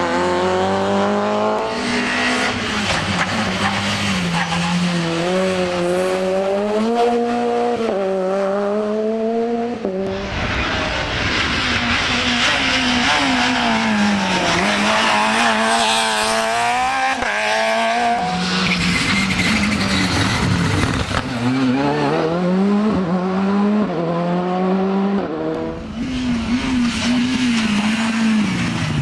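Small hatchback rally cars, among them a Peugeot 106 and a Renault Clio, passing one after another on a tarmac stage. Their engines rev hard, the pitch climbing through each gear and dropping at shifts and under braking, with a harsher, noisier stretch about ten seconds in.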